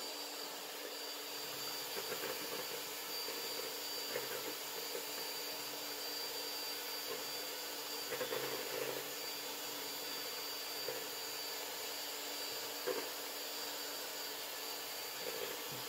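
Electric hand mixer running loud and steady, its twin beaters whipping eggs in a bowl to thicken them, with a constant high whine and now and then a faint knock.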